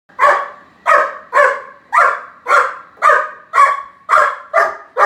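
Four-month-old Great Dane puppy barking steadily, nine loud barks in a row at about two a second.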